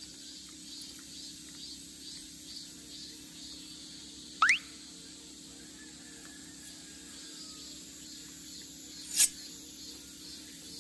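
Quiet outdoor background broken by two brief high squeaks: a fast rising one about four and a half seconds in and a sharper, shorter one about nine seconds in.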